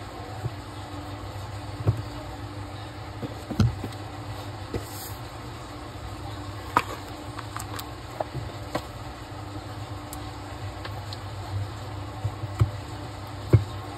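Scattered light clicks and taps of small tools and phone parts being handled during an iPhone screen repair, over a steady low hum.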